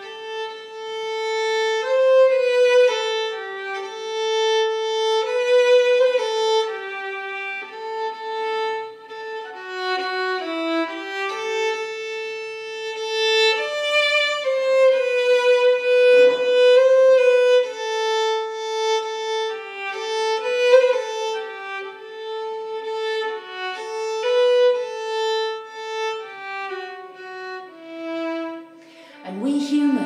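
Solo violin playing a melody of held notes, one note at a time, stepping up and down mostly in its lower-middle range.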